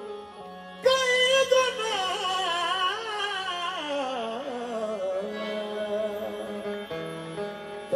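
A male vocalist sings a long, wavering melismatic line. He comes in strongly about a second in and slides gradually downward over a steady held drone.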